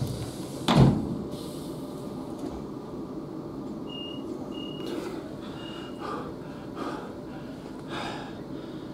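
Steady hum inside the cabin of a Class 450 electric train standing at a platform, with one loud thump about a second in and three short high beeps between about four and six seconds in.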